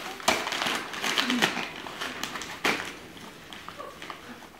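Wrapping paper crinkling and tearing as a dog rips and shakes it open with its teeth. The rustling is busiest in the first three seconds and quieter after.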